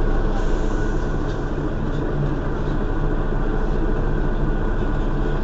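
Mercedes-Benz Citaro city bus's rear-mounted engine idling steadily while the bus stands at a stop.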